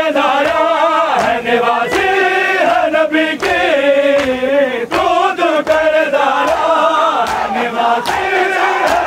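Group of men chanting a Shia noha (mourning lament) in unison, with regular sharp slaps of hands beating on chests (matam) keeping the beat.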